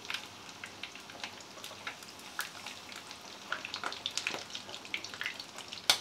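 Egg and masoor dal pakoras shallow-frying in hot oil in a wok on medium flame: a steady sizzle full of small crackles and pops, as the second side cooks. There is one sharp tap near the end.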